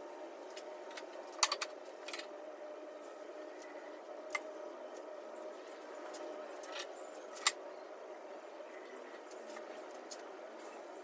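Scattered light clicks and knocks of hardwood strips and bar clamps being handled and laid out for a glue-up, over a steady low hum; the sharpest knocks come about a second and a half in and about seven seconds in.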